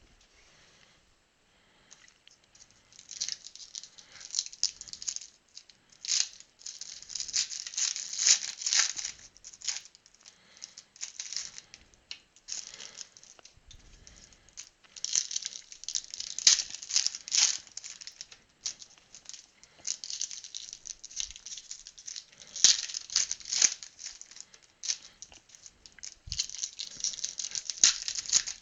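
Trading card packaging and cards being handled: wrappers crinkling and tearing, and cards clicking and rustling against each other in repeated bursts with short pauses between.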